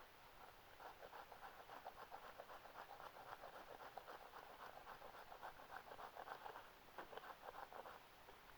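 Small folding saw blade of a pocket knife rasping through wood in quick back-and-forth strokes, several a second, with a brief break about seven seconds in before a few more strokes.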